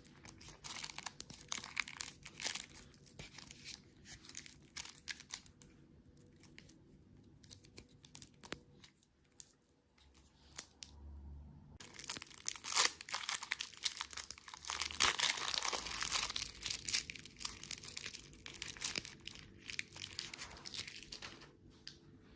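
Candy packaging being torn open and crinkled by hand, in irregular crackly bursts with a short pause about halfway through.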